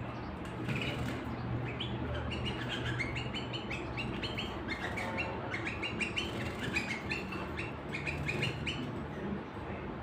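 Caged canaries chirping and twittering in quick short notes without a break, over a steady low hum.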